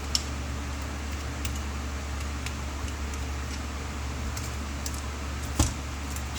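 Light clicks and taps of small parts and tools being handled, with two sharper clicks, one just after the start and one near the end, over a steady low hum.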